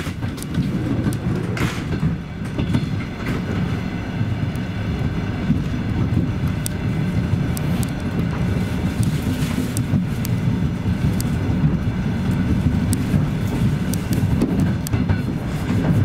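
ET2M DC electric multiple unit under way, heard from inside the carriage: a steady low rumble of wheels on track with scattered sharp clicks and knocks from rail joints.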